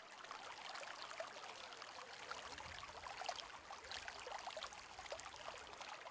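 Faint trickling, flowing water like a small stream, steady throughout.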